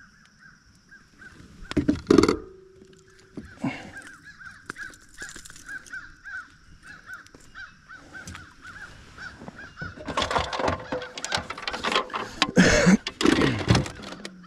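Knocks and a burst of loud clattering and rustling from about ten seconds in as a caught bass is handled, unhooked and laid out for measuring on a kayak. Underneath runs a steady series of short calls at one high pitch, about three a second.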